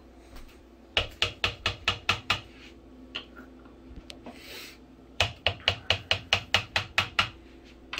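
A metal measuring spoon clicking against the rim of a container as whole grain mustard is knocked off it, in two runs of quick taps, about five or six a second. A short scrape comes between the runs.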